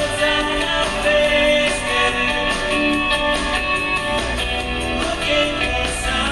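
Background music: a song with guitar and a singing voice, at a steady loud level.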